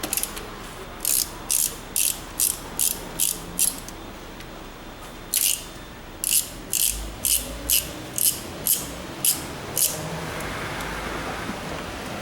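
Hand ratchet wrench clicking in short strokes about two a second, in two runs with a pause between, as bolts are worked loose to take off the cover over the water pump.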